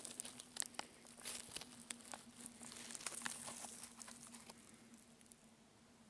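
Dry leaves, twigs and soil crackling and rustling as a hand clears the forest floor and pulls up a porcino mushroom. A flurry of small crackles comes in the first three seconds, then it fades to a faint rustle.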